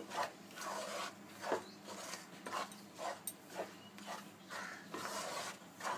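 A spoon scraping around the bottom of a pan in repeated strokes, about one to two a second, while stirring thick raw-mango and jaggery chutney so it does not stick.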